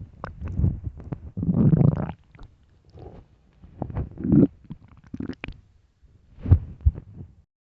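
Human stomach growling and gurgling in irregular bursts of rumbling with short quiet gaps between them, a longer rumble about two seconds in and the sharpest gurgle near the end.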